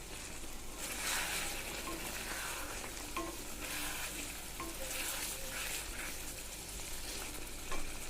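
Chicken curry sizzling in a pan as it is stirred, with repeated stirring strokes about once a second and a few short scrapes against the pan; the thick masala is cooking down with only a little water added.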